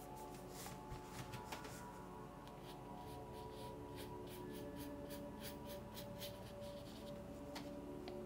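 Stiff flat brush scraping oil paint onto canvas in quick short strokes, several a second, over faint background music with long held tones.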